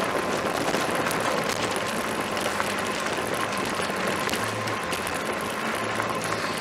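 Fat-tire electric bike riding fast on a dirt road: a steady rush of wind over the camera microphone and tyre noise on the gravel, with a faint steady whine.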